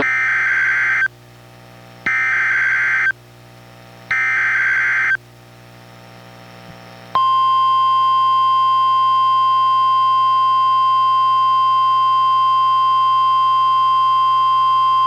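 Emergency Alert System activation on NOAA Weather Radio: three one-second bursts of SAME header data, a harsh digital warble each about two seconds apart. After a short pause, about seven seconds in, the steady single-pitch warning alarm tone starts and holds. Together they signal the start of a Special Marine Warning broadcast.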